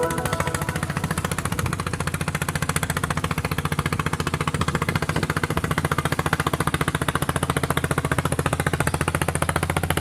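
Small engine running steadily with a fast, even putter.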